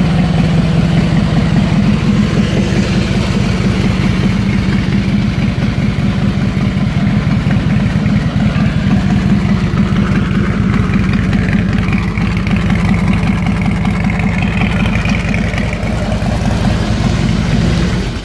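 Harley-Davidson Heritage Springer's Twin Cam 88B V-twin idling steadily with its uneven low rumble, cutting off near the end.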